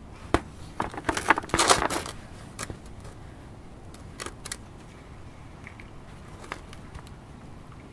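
Coarse, gravelly potting mix rattling and clicking in a plastic bucket as it is handled. There is a quick run of clicks about a second in, then a few scattered single clicks.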